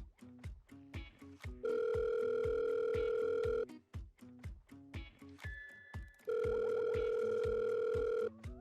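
Telephone ringing tone: a steady pitched tone held about two seconds, twice, with a pause of about two and a half seconds between, as the GSM doorbell calls the owner's phone. Instrumental background music with a steady beat plays underneath.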